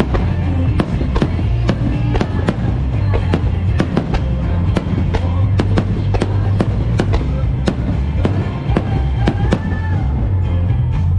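Aerial fireworks shells bursting in quick succession, many sharp bangs and crackles a second, over music with a heavy bass line.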